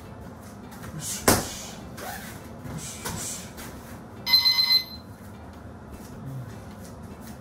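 Gym interval timer beeping for about half a second, a few seconds in, signalling the switch between round and rest. About a second in there is a single sharp thump.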